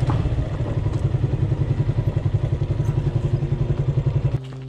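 Motorcycle engine running at low speed on a dirt trail, with an even pulsing beat. It cuts off suddenly near the end, giving way to low steady tones.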